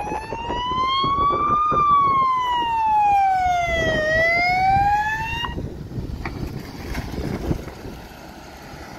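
Ambulance siren sounding a slow rising-and-falling wail as the ambulance drives past, cutting off suddenly about five and a half seconds in. After that, only the quieter sound of the vehicle on the road remains.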